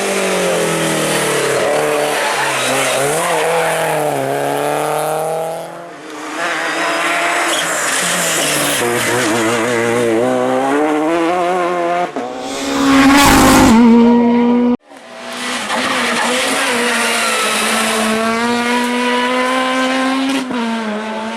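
Rally cars at full effort on a stage, engines revving up and down through gear changes, with tyre squeal, in several short cuts from car to car. A little past halfway one car goes by very close and loud for about a second.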